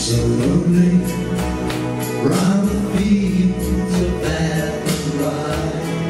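Men singing a song live, accompanied by strummed acoustic guitar with a steady pulse.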